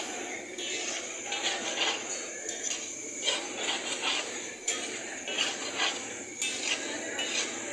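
Metal spatula scraping and clicking against a large flat iron tawa as it stirs and chops an egg-and-daal mixture, in repeated irregular strokes.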